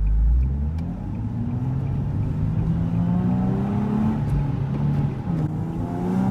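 Nissan 370Z's VQ37VHR V6 with test pipes accelerating hard from a standstill, its exhaust note rising steadily in pitch. About five and a half seconds in, the note drops on an upshift and then starts climbing again.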